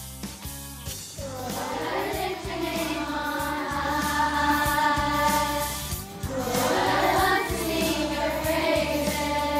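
A group of children singing a worship song together over a recorded backing track with bass and a steady beat. The singing comes in about a second in, after a short instrumental lead-in.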